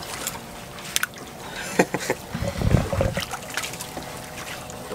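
Chef's knife slicing raw fish on a wooden cutting board, with a few light taps of the blade on the board and a low thud a little past halfway.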